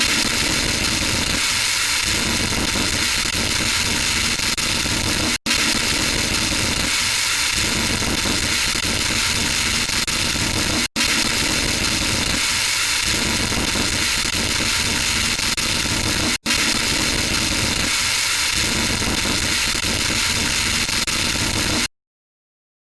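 Harsh electronic static hiss, loud and steady, looped: it drops out for an instant about every five and a half seconds, then cuts off abruptly near the end.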